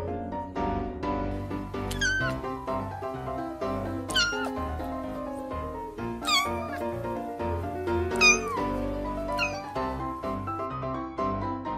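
A young kitten mewing five times, short high-pitched mews about two seconds apart, each falling in pitch, over background instrumental music.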